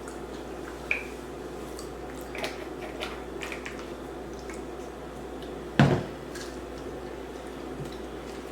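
Eating fried chicken wings: wet chewing and mouth noises with scattered small clicks, and one louder knock about six seconds in, over a steady low hum.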